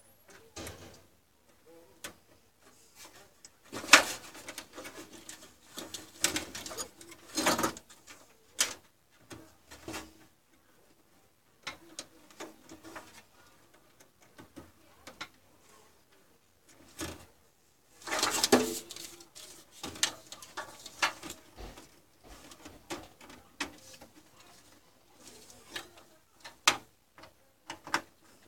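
Handling noise inside an open desktop PC case: irregular clicks, knocks and rustles as parts and power-supply cables are worked by hand, with a few louder knocks.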